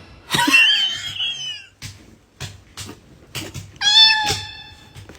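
Two drawn-out animal calls: the first wavers and lasts about a second, the second is steadier and shorter, about four seconds in, with a few faint clicks between.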